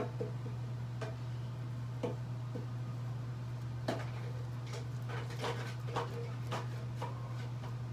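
Scratchy strokes of a vintage Gillette Ball End Tech safety razor cutting through lathered stubble on the cheek, several short strokes, most of them close together past the middle, over a steady low hum.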